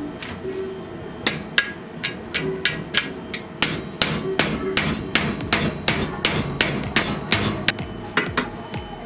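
Hammer striking repeatedly in a steady rhythm of sharp knocks, about three a second, starting about a second in.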